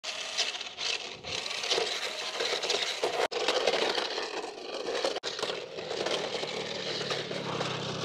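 Small electric motor of a toy RC truck whirring, with its plastic wheels rattling over gritty ground. The sound breaks off abruptly twice, about three and five seconds in.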